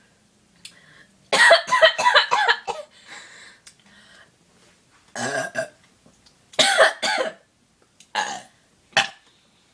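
A girl burping several times after gulping carbonated pop: a long, croaky burp about a second in, then a few shorter burps.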